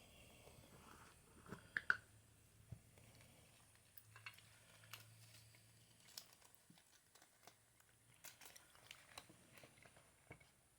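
Faint scattered clicks, taps and rustling, with a sharper double click about two seconds in.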